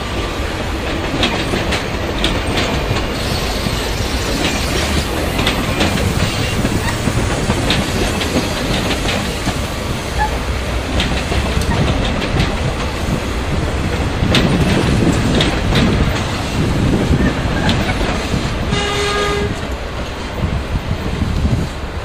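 Blue Train passenger coaches rolling past, wheels clicking over rail joints, with a steady rumble under the clicks. Near the end a brief horn-like tone sounds.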